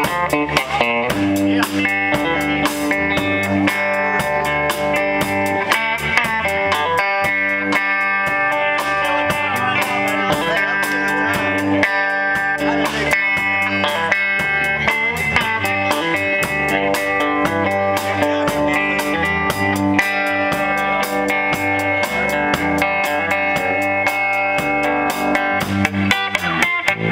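Live rock band playing an instrumental passage without vocals: electric guitars over a steady drum-kit beat.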